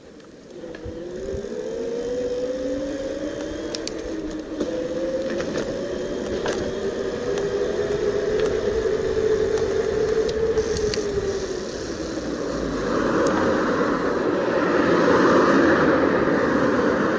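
Bafang BBS02 750 W mid-drive e-bike motor whining under power. Its pitch rises as the bike accelerates, holds, then falls away about two-thirds through as the rider slows. A few sharp ticks come through along the way, and a louder rushing noise takes over for the last few seconds.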